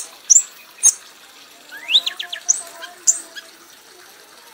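Caged songbird (a red kanis) calling in short, high chirps, with a quick run of rising notes about two seconds in.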